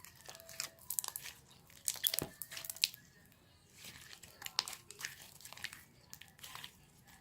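Slime being squeezed and stretched by hand, giving an irregular run of crisp crackles and pops, loudest about two to three seconds in.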